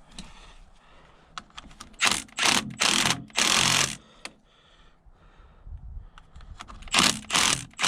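A hand-held power tool run in short rattling bursts on a corroded battery terminal nut: four quick bursts about two seconds in, then two more near the end.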